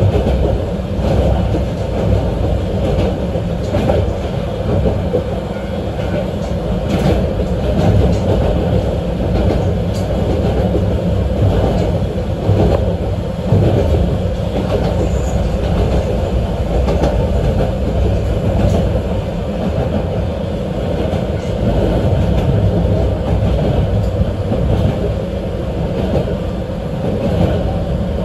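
Running noise of a 762 mm narrow-gauge Yokkaichi Asunarou Railway train heard from inside the car: a steady low rumble of wheels on rail, with a few faint clicks from rail joints.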